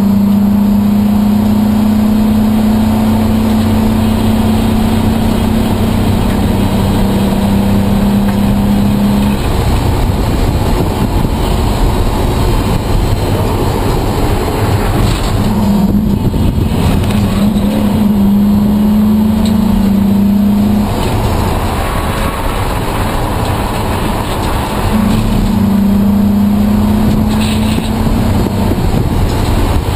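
Race car engine heard from inside the cabin, running hard at high, nearly steady revs over road and wind roar. The engine note drops away about nine seconds in, comes back around fifteen seconds, drops again near twenty-one seconds, and returns briefly around twenty-five seconds.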